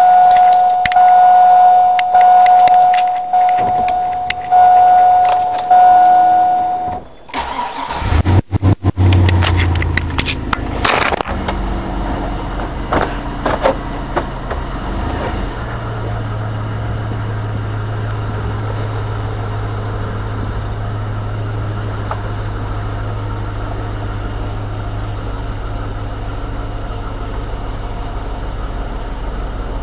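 A steady high electronic warning tone with a couple of brief breaks, then a 2002 Chevy Avalanche's 5.3L V8 cranks and catches about eight seconds in. It revs briefly and settles into a steady idle through a Gibson high-flow aftermarket exhaust.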